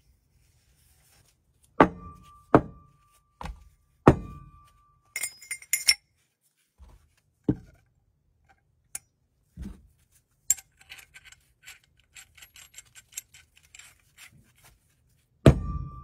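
Metal plumbing fittings (copper pipe, brass and steel fittings) knocked and set down on a wooden workbench: a series of sharp knocks, several with a short metallic ring, and a run of quick light clicks as parts clink together. The loudest knock, with a ring, comes near the end.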